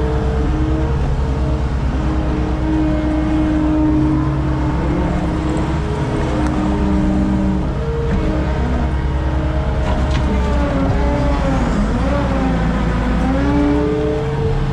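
Skid steer engine running under load while it pushes dirt and debris, its pitch rising and falling as the throttle and load change, with a few faint knocks about ten seconds in.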